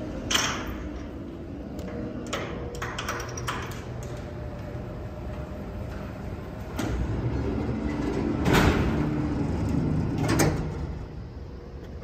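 Freight elevator doors and gate sliding: a few clicks and knocks in the first few seconds, then a rumbling slide of about four seconds that stops with a bang.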